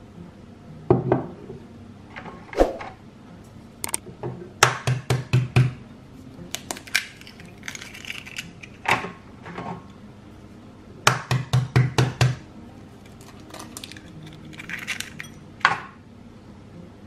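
Eggs tapped against the rim of a ceramic bowl to crack them, in two quick runs of about six taps each, with single knocks and the crackle of shells being pulled apart between them.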